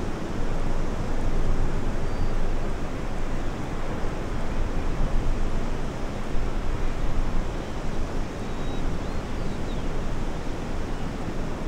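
Steady rush of ocean surf mixed with wind, strongest in the low end.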